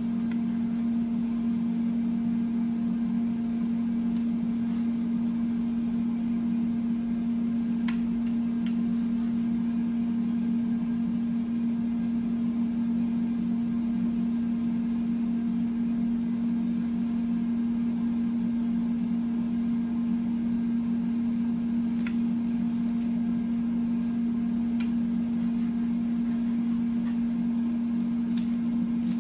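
Steady electrical hum of a running kitchen appliance, one low even tone that does not change. A few faint knife clicks against a plastic cutting board come through it as the rolls are sliced.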